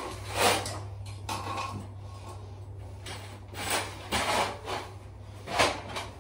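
Handling noise in a small tiled bathroom: irregular rubs and knocks as a cloth and tools are moved about beside the toilet, over a low steady hum that stops about five and a half seconds in.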